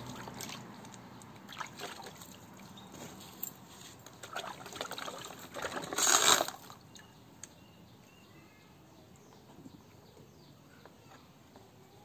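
Water splashing and trickling in a plastic basin as a puppy is washed by hand, with the loudest splash about six seconds in and quieter after.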